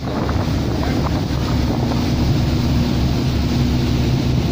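Steady low drone of a boat's engine with a held hum, under wind buffeting the microphone and the wash of water.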